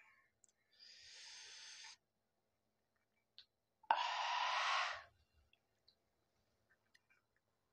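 A man breathing hard through his open mouth against the burn of a very hot chili chip. There are two long breaths, the second, about four seconds in, louder and blown out.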